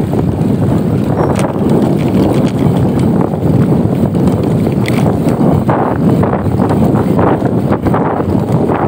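Wind buffeting the microphone of a camera carried on a moving bicycle: a loud, steady rumble.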